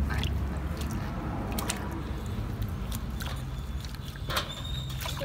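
Water sloshing and dripping in a large steel basin as a baby monkey's wet fur is rubbed and rinsed by hand, with scattered small splashes and clicks.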